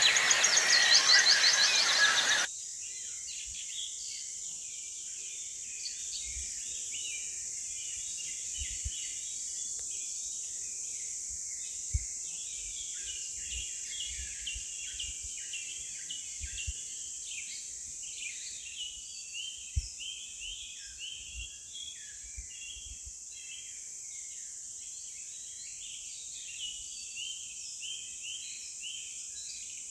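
Tropical forest ambience: many birds chirping over a steady high insect drone, with a few soft low thumps. It follows a louder passage that cuts off about two and a half seconds in.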